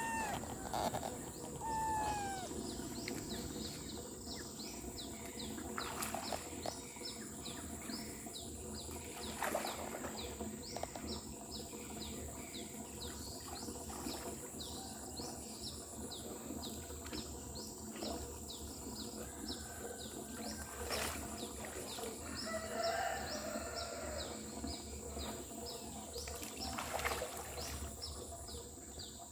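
A cat meows a few times in the first two seconds. Then a short, high, falling chirp repeats steadily, about twice a second, with a few sharp knocks here and there.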